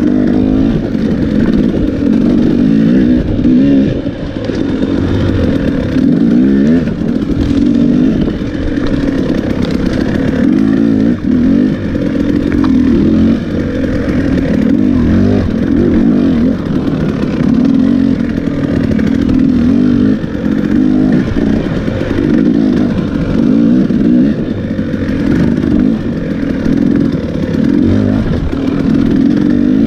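Enduro dirt bike engine running loud under constantly changing throttle, its pitch rising and falling every second or two.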